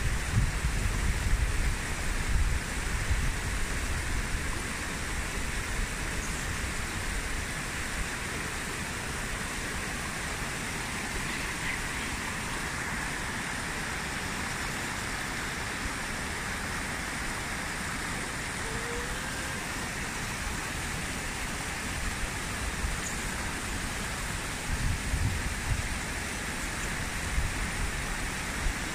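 Steady rush of a shallow mountain river running over rocks, with wind buffeting the microphone in the first few seconds and again near the end.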